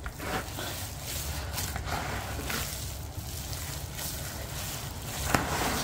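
Hands kneading and squeezing raw minced lamb kebab mixture in a plastic bowl: soft, irregular wet squelches over a low steady hum.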